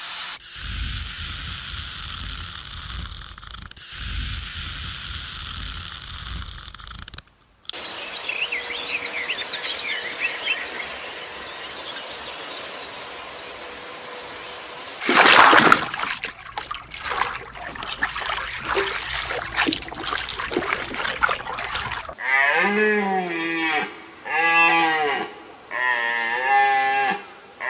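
A farm animal calling four or five times near the end, each call about a second long and clearly pitched. Before that come steady noise with a low rumble that cuts off suddenly, then faint high bird chirps over a quieter background.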